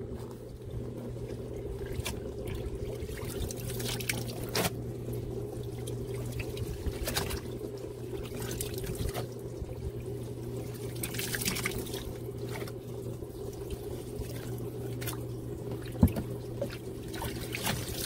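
Portable twin-tub washer's drain pump running with a steady hum as rinse water drains and trickles out, with water pouring and splashing off wet clothes and a few light knocks as the clothes are moved between tubs.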